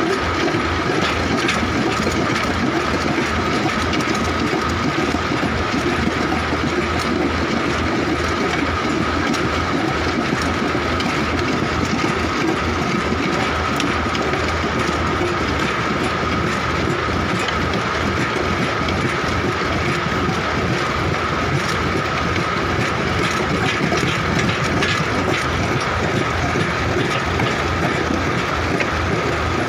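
Massey tractor running with its PTO-driven post hole digger auger drilling into hard, stony soil: a steady mechanical din with a high whine over a fast rattle.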